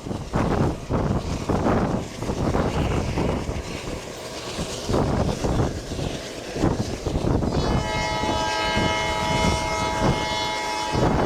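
WDM2 diesel locomotive's ALCO engine chugging under load, then its horn sounds one long blast of several tones together, starting about two-thirds of the way through and stopping just before the end.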